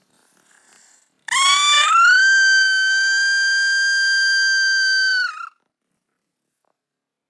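A kitten's single long, loud cry: it rises in pitch at the start, holds one steady high note for about four seconds, then drops and stops.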